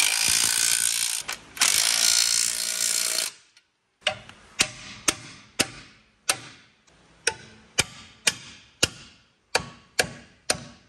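A compressed-air hand tool runs with a loud air hiss in two bursts over the first three seconds while driving a bolt into the steering box support plate. Then, after a short pause, a hand ratchet clicks about twice a second as the bolt is snugged down by hand.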